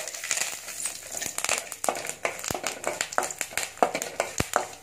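A wooden spatula stirring a tempering of mustard seeds, cumin, curry leaves and dried red chillies frying in hot coconut oil in a metal kadai. Repeated sharp clicks of the spatula against the pan sound over a light sizzling hiss of the frying.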